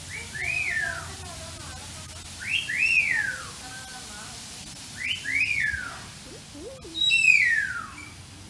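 Four whistles about two and a half seconds apart, each a quick rise then a slower fall in pitch. The last is a long downward slide and among the loudest.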